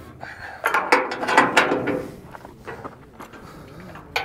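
Steel latch and chain hardware at the rear of a 1969 Jeep M715 being handled, clicking and rattling. The clicks and rattles bunch up in the first couple of seconds, then thin to light ticks, with one sharp click near the end.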